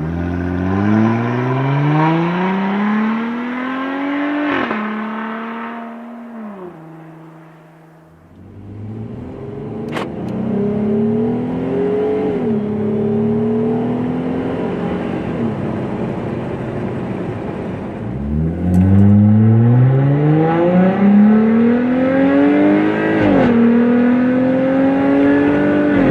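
Jeep Gladiator's V6 through a Flowmaster Outlaw Extreme cat-back exhaust, accelerating hard with a rising pitch and upshifting about four and a half seconds in. It eases off and quiets around seven to eight seconds, pulls away again, then accelerates hard once more from about eighteen seconds, loudest here, with another upshift near twenty-three seconds.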